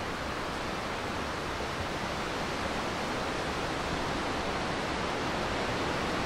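Steady rushing wind noise on the microphone while cycling, with an uneven low rumble of buffeting, growing slightly louder.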